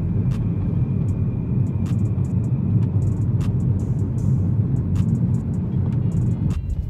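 Steady low rumble of a BMW F30 3 Series sedan driving, road and engine noise, with scattered sharp ticks. The rumble cuts off suddenly near the end.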